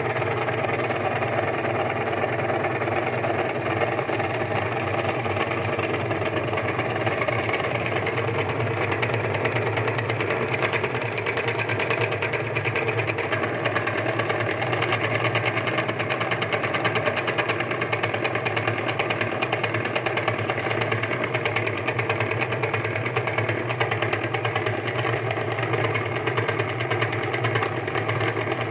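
Electric meat grinder motor running steadily with an even mechanical hum, grinding mini Oreo biscuits.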